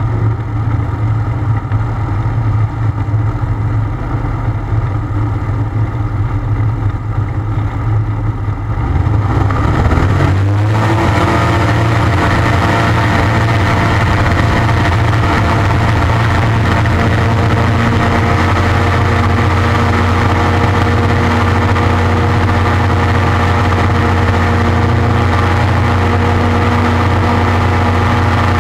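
Ultralight aircraft engine running at low power, then opened up with a rising pitch about ten seconds in. It then runs steadily at full takeoff power through the takeoff roll and climb-out.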